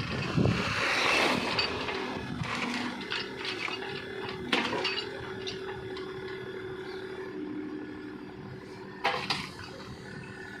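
Mini excavator running with a steady hum, with sharp metallic clanks about four and a half seconds and nine seconds in.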